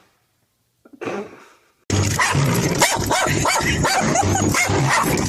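Dog barking rapidly and without pause, starting suddenly about two seconds in after a brief noise.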